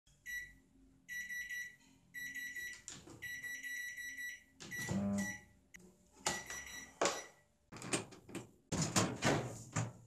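Tarrington House MWD5130 microwave's control-panel buzzer beeping again and again, a high tone in short and long beeps up to about a second and a half each, as its buttons are pressed. The unit has a random-beeping fault. For the last two seconds or so the beeps give way to knocks and rattles of the oven being handled.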